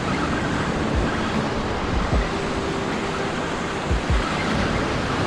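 Ocean surf washing on the beach with wind buffeting the microphone, giving a few brief low thumps.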